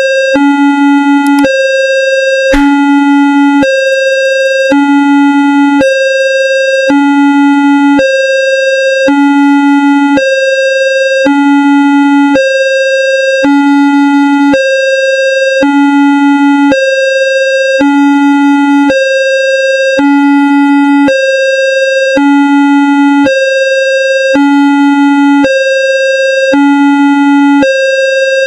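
Homemade synthesized Indonesian railway level-crossing alarm: a low electronic tone and a higher one alternate steadily, each lasting about 0.7 s. A short click about two and a half seconds in.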